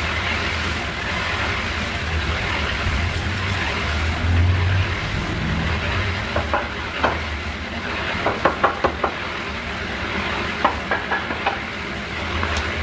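Clusters of quick, sharp knocks from a hand tool striking an old wooden door frame as it is worked loose for removal, over a steady low rumble. The knocks come in three short bursts in the second half.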